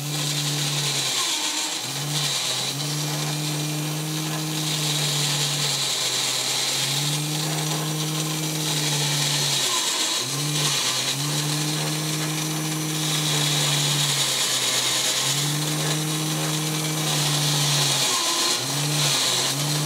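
Vintage 1960s Japanese battery-operated drinking bear toy running: its small electric motor and gear train whir in repeating spells, a short burst followed by a longer run, as the arm pours and lifts the cup to the mouth, over a constant mechanical hiss.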